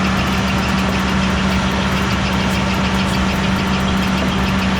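Diesel engine of a Powerscreen Commander 510 soil screener running at a steady speed, with a strong constant hum and a fast, even ticking over it.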